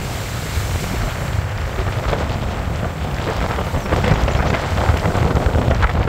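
Wind buffeting the microphone: a loud, steady low rumble with hiss.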